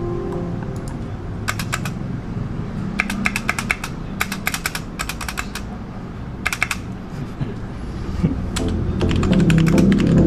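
Mechanical keyboard being typed on in short runs of quick keystrokes, with pauses between runs. Background music plays under it and grows louder near the end.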